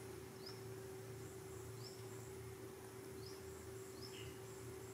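Faint background ambience: a steady low hum under a quiet, short rising chirp that repeats about every second and a half, with a faint high pulsing trill.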